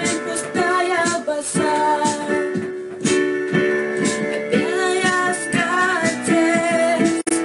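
A woman singing a song with keyboard accompaniment and a steady beat. The sound drops out for an instant near the end.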